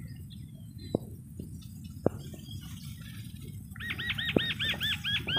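A bird calling in the last second and a half: a quick run of about eight arching notes, roughly five a second. A few faint clicks come earlier over a low background hum.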